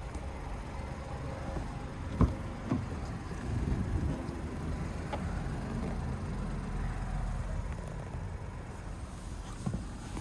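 A car door being unlatched and swung open: a sharp latch click about two seconds in, then lighter knocks and rustling of handling, over a steady low outdoor rumble.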